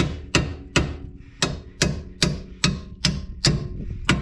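Hammer blows driving a steel bolt out of a pickup's front suspension: about ten evenly spaced strikes, roughly two and a half a second, each with a short metallic ring.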